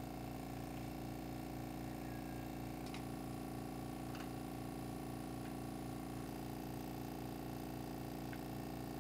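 Wood lathe running steadily with a spinning burl-and-resin bowl blank, its motor giving an even hum with a faint pulse about three times a second. A few faint ticks come from the cutting.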